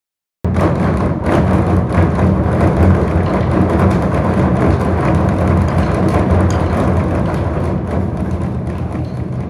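Ensemble of large drums on stands beaten together in a fast, dense roll, a loud low rumble packed with strikes. It starts suddenly about half a second in and eases a little near the end.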